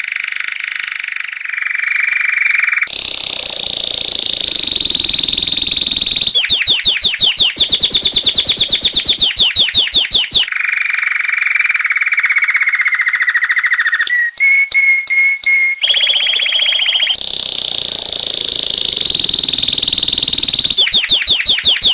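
A songbird singing a long, loud run of rapid trills. Phrases of fast repeated whistled notes switch every few seconds between a lower trill, a higher thin one, and quick separate downward notes, with a brief choppy stretch about two-thirds of the way through.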